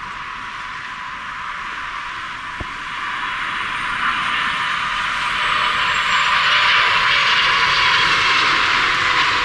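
Jet engines of a Boeing 777-300ER airliner passing close, growing steadily louder, with a faint high whine that slides down in pitch as it goes by.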